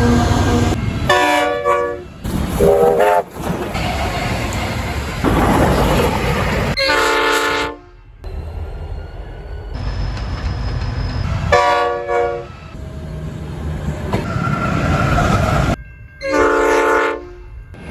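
Locomotive horn sounding about five short blasts, each a chord of several tones, over the steady rumble and rail noise of a passing freight train. The sound changes abruptly several times between blasts.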